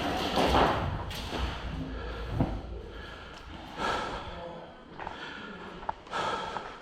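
A person breathing close to the microphone, with a few thuds.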